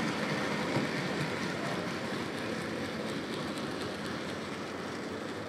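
Model railway goods train of wagons running past on the layout: a steady rumble of the small wheels on the track, with faint quick clicks over the rail joints.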